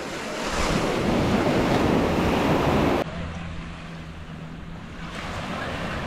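Sea surf washing in, a rushing noise that swells over the first three seconds and cuts off suddenly. After the cut, quieter wind and water with a faint steady low hum.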